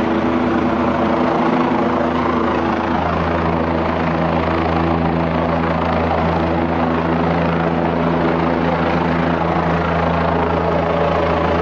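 Police helicopter flying overhead: a loud, steady rotor and engine drone.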